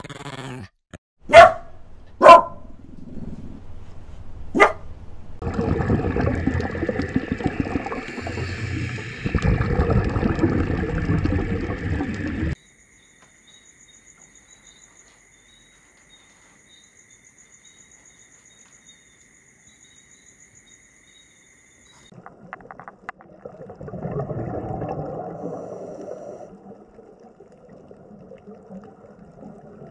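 A puppy yapping three times, sharp and high, in the first five seconds. A noisy stretch of several seconds follows, and later only faint steady high tones and a low, muffled swell.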